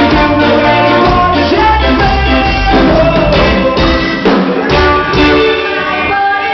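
A live band playing loudly, with a heavy bass line, steady percussion and sustained melody notes, and singing over it.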